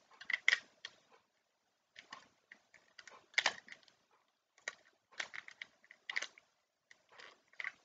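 Irregular clicks and rattles of a tripod's phone-holder clamp being turned and adjusted by hand.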